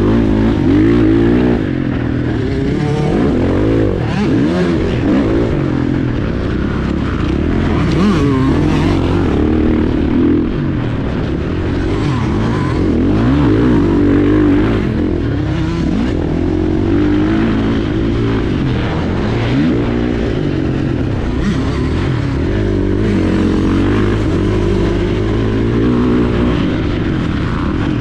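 KTM 450 SX-F's single-cylinder four-stroke engine heard from on the bike, racing on a motocross track: the revs climb and drop over and over as the throttle is opened and rolled off.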